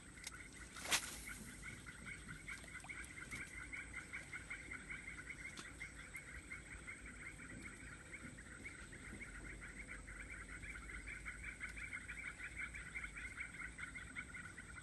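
A steady chorus of fast, pulsing trills from wetland animals, with one sharp click about a second in.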